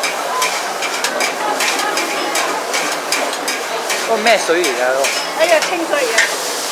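Flat rice noodles (char koay teow) sizzling as they are stir-fried in a wok, with a steady hiss and frequent sharp clinks and scrapes of the metal spatula and ladle against the wok.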